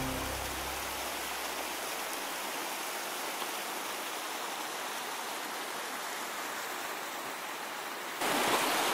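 Meltwater stream running through a snow-filled gully, a steady rush of water. Instrumental music fades out in the first moment, and the water gets louder about eight seconds in.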